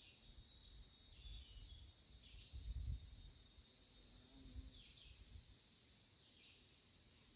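Faint outdoor insect chorus: a steady high-pitched drone, with short falling chirps every second or so and a brief low rumble about three seconds in.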